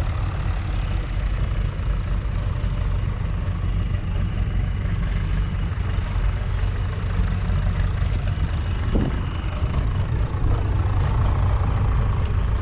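Massey Ferguson 135's 2.5-litre three-cylinder diesel engine running steadily.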